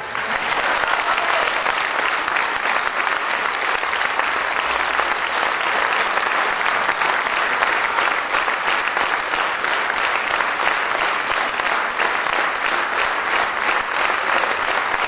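Audience applauding steadily after the music ends.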